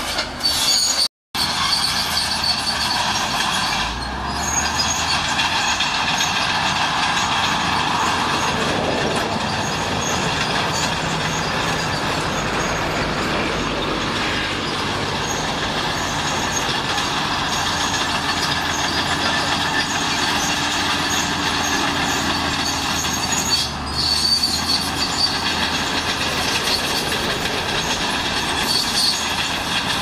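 Shantui crawler bulldozer at work: diesel engine running under load with the steel tracks clanking and squealing, steady throughout. A brief dropout cuts the sound just over a second in.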